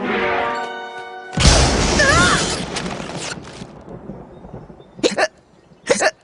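Cartoon soundtrack: a held musical note, then about a second and a half in a loud, noisy crash effect that dies away over about two seconds, followed by two short hiccups from a cartoon character about a second apart near the end.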